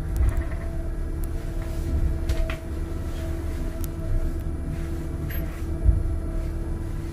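Small hillside monorail car running along its single rail: a steady low rumble under a steady motor hum, with a few short knocks, the loudest about six seconds in.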